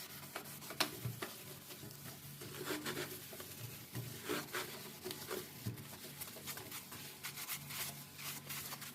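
A sponge scrubbing a stove top, soft rubbing strokes with a few light knocks.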